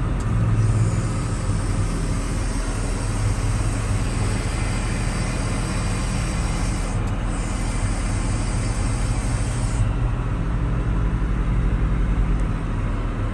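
Car engine of an Omega idling steadily, running again after its accelerator pedal was recalibrated to cure a crank-but-no-start fault.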